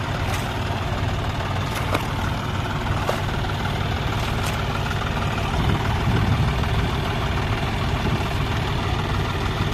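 John Deere tractor diesel engine running steadily at idle, a low even hum, with a few brief sharp clicks in the first half.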